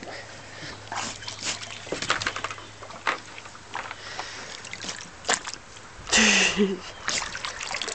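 Water splashing and sloshing in a plastic kiddie pool as a Chesapeake Bay retriever plunges its head under after minnows, in scattered short splashes. About six seconds in, a brief, loud vocal sound is the loudest moment.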